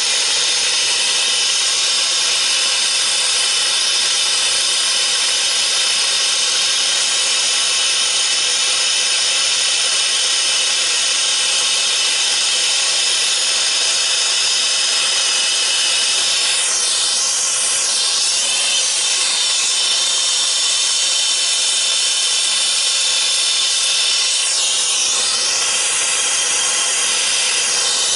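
Brazing torch flame hissing steadily while it heats copper refrigerant line joints on a new hermetic compressor, the hiss shifting briefly twice in the second half.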